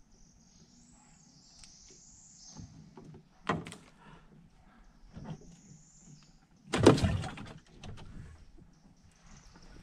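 Knocks and thumps of hard objects in a small boat as a caught bream is handled: one sharp knock about three and a half seconds in, then a louder thump with a brief rattle about seven seconds in.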